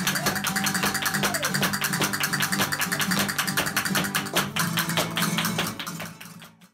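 Live flamenco music: acoustic guitar with rapid, dense percussive tapping driving the rhythm. It fades out near the end.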